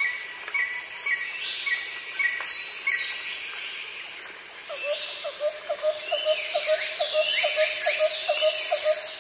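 Birds calling and chirping over a steady high insect drone. A short note repeats about twice a second in the first half, and a lower call repeats about three times a second in the second half.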